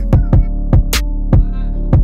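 Music with a steady drum beat over deep bass notes.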